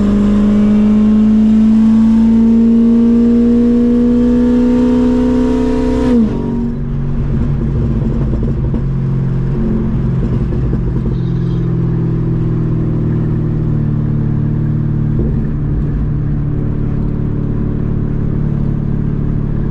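Straight-piped C6 Corvette V8 with long-tube headers, loud throughout. The exhaust note climbs steadily in pitch as the engine pulls for about six seconds, then drops off suddenly and settles into a steady, lower drone while the car cruises.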